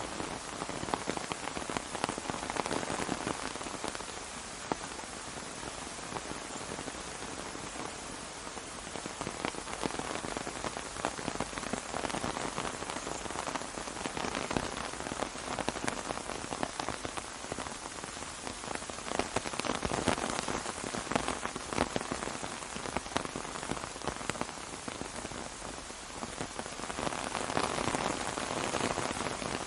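Steady rain falling on an umbrella, dense drops ticking on the canopy, the shower swelling and easing every few seconds.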